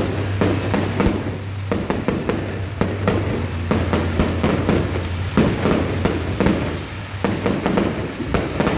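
Fireworks show with shells bursting in rapid, irregular succession, several sharp bangs a second, over a steady low hum.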